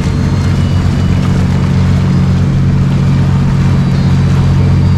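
Motorboat engine running steadily at close range, a deep, even drone.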